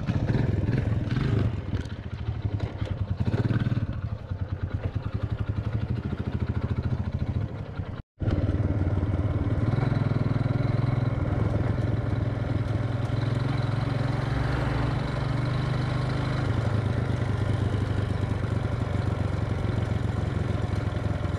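Small motor scooter engine running steadily under way, with a continuous hum; the sound cuts out for a split second about eight seconds in.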